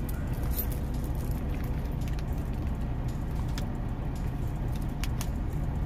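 A steady low rumble underneath, with a few faint, light clicks of glass and metal charm beads on a snake chain bracelet being handled as it is fastened on a wrist.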